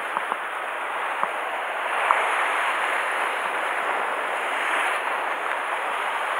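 Sea surf washing against the rocks below, a steady rushing that swells a little about two seconds in, with a few small clicks.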